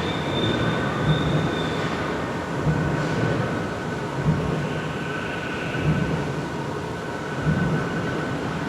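Large factory machine running with a steady mechanical rumble and a heavy low thump about every one and a half seconds, over a thin steady whine. A higher whine sounds briefly in the first two seconds.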